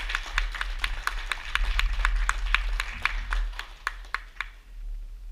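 Small audience applauding, individual hand claps distinct rather than blended, dying away near the end.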